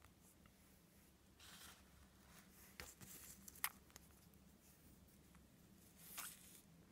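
Near silence, broken by faint rustles and a sharp click of fingers handling the camera and a newborn hamster pup, loudest about a second and a half in, around three to four seconds in, and again about six seconds in.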